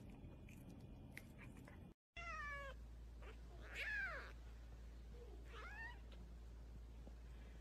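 A cat meowing three times, a bit under two seconds apart: the first falls in pitch, the second is the loudest and rises then falls, the third rises.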